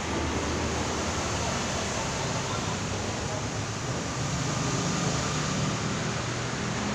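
Steady, even rushing noise of a small restaurant's room ambience, with faint indistinct voices under it.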